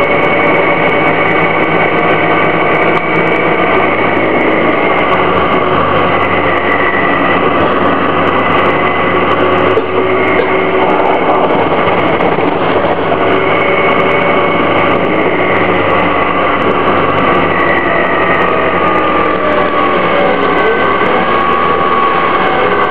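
Orion VII bus's Detroit Diesel Series 50G four-cylinder natural-gas engine running steadily, with high whining tones that slowly drift in pitch over the engine noise. There is a brief dip in the sound about ten seconds in.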